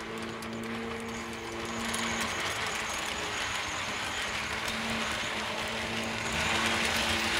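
H0-scale model ICE train running past on the track: a steady electric motor hum with rolling wheel-on-rail noise, growing louder about two seconds in and again near the end as the power car passes close.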